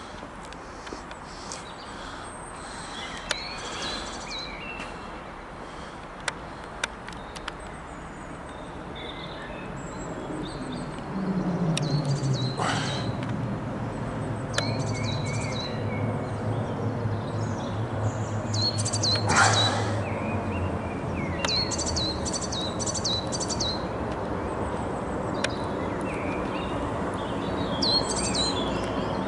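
Airbus A320-232 on descent, its IAE V2500 turbofan noise swelling from about ten seconds in: a low hum falls in pitch, then holds steady under a building roar. Small birds chirp throughout, their calls the sharpest sounds over the jet noise.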